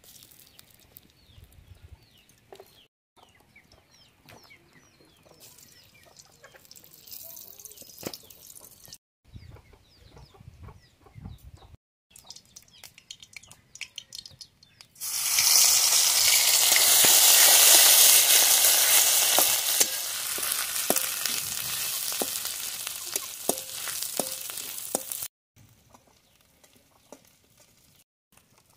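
Food dropped into hot oil in an aluminium wok starts sizzling loudly about halfway through. The sizzle settles to a steadier frying hiss with the scrape and tick of a metal spatula stirring, then breaks off near the end.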